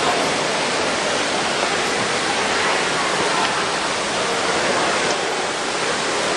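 Fountain water jets splashing into a pool: a steady, even splashing.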